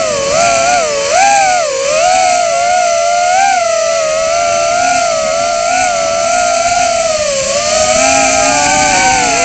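Emax Tinyhawk 2 micro FPV drone's brushless motors whining, the pitch swinging up and down with the throttle as it is flown freestyle, picked up close by the onboard camera. About seven seconds in the pitch dips low, then climbs.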